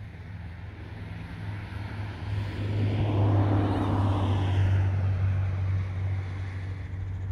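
A road vehicle passing by: tyre and engine noise swells to a peak about three to five seconds in and then fades, over a steady low hum.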